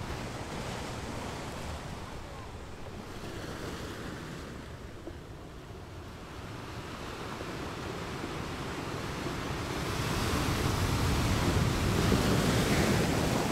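Waves crashing on a rocky beach: a continuous rush of surf that swells and grows louder in the last few seconds as a wave breaks.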